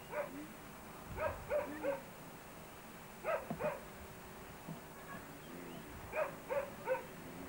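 A dog barking in quick runs of three barks, a couple of seconds apart, with a single bark at the start.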